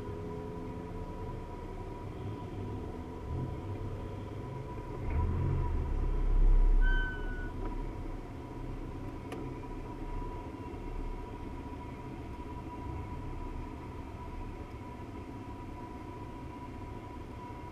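Car engine idling, heard from inside the cabin: a steady low rumble with a faint steady whine over it. The rumble swells louder about five to seven seconds in as the car creeps forward in traffic, and a short high squeak comes near seven seconds.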